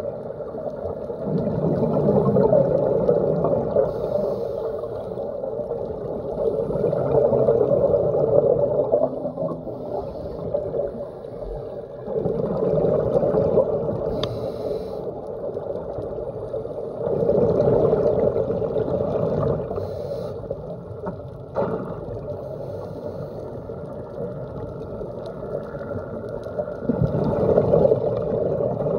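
Scuba diver breathing through a regulator underwater: five bubbling rumbles of exhaled air, each two to three seconds long, with short faint hisses between them.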